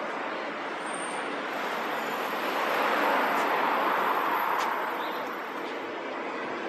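Street traffic noise, with a vehicle passing by that swells up about two and a half seconds in and fades away near the five-second mark.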